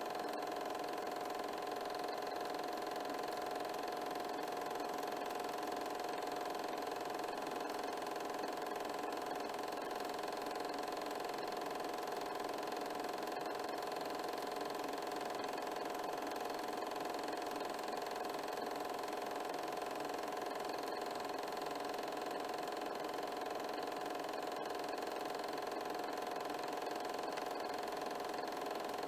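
Home-movie film projector running: a steady mechanical whir with a few held tones, unchanging throughout.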